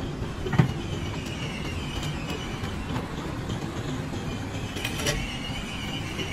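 Loaded steel wheelbarrow rolling over dirt, its wheel squeaking in a wavering high tone over a steady rumble. A sharp knock comes about half a second in, and a lighter one near five seconds.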